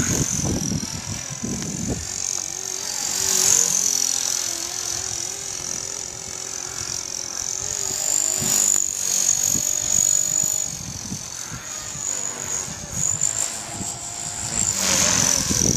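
E-flite Blade CP electric RC helicopter in flight, its motor and rotor giving a high, steady whine that wavers slightly in pitch, with gusty wind buffeting the microphone.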